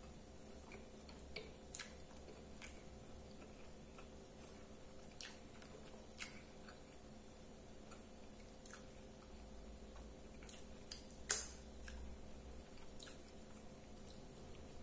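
Faint close-up chewing of a mouthful of soft bread roll, with scattered small mouth clicks and one sharper click about three quarters of the way through.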